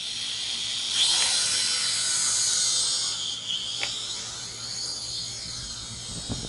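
Holy Stone HS110W budget quadcopter drone's small electric motors and propellers whining in flight. The buzz swells about a second in and is loudest for the next couple of seconds, then grows fainter.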